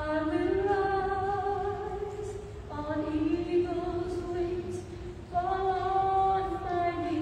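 A woman singing solo into a handheld microphone, holding long notes in phrases, with new phrases starting a little under three seconds in and again about five seconds in.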